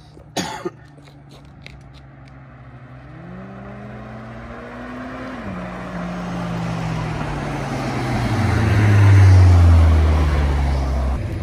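A car engine accelerating as it approaches, its pitch rising and then dropping at a gear change about five seconds in, growing loudest as the car passes near the end before the sound cuts off abruptly. A brief sharp click sounds just after the start.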